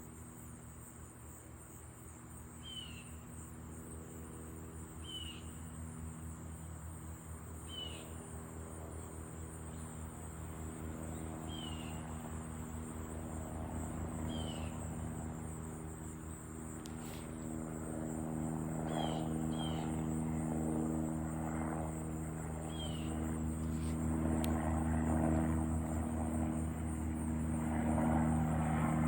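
Airbus EC145 twin-engine helicopter approaching, its steady engine and rotor hum growing gradually louder throughout. Short high chirps repeat every two to three seconds over it.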